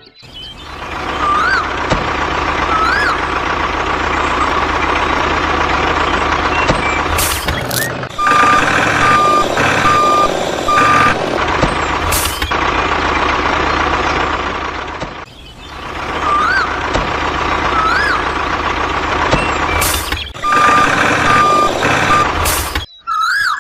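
Truck engine running, with a reversing alarm beeping in two short runs of steady beeps and a few short bursts of hiss.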